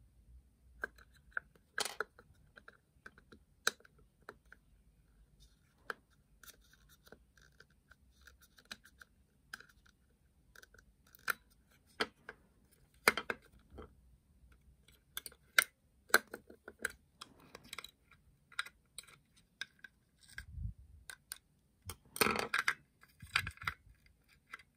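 Small plastic parts of a toy electric train being handled: scattered sharp clicks, taps and short scrapes, with a busier run of rattling and scraping near the end.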